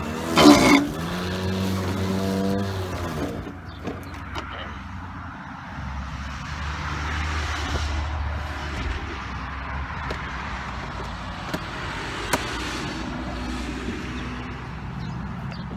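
EGO battery-powered lawn mower running and cutting grass, a steady whir with a whooshing blade sound. A louder whirring swell comes early on and changes pitch over a couple of seconds.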